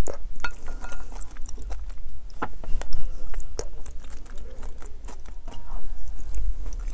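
Close-miked chewing of a soft minced-meat mapo dish eaten from a wooden spoon: wet mouth sounds with irregular sharp little clicks, the loudest of them between about two and a half and three and a half seconds in.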